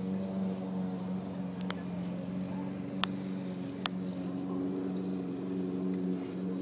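A motor or engine running at a steady even hum, with a few short sharp clicks about two, three and four seconds in.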